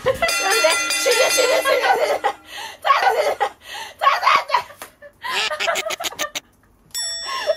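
Two women laughing hard in bursts, with music laid over it. The sound drops out briefly near the end.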